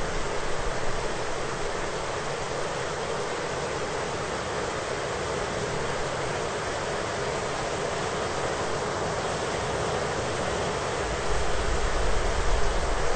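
Thunderstorm: steady rain hiss throughout. A low thunder rumble fades out in the first second and rolls in again, louder, about eleven seconds in.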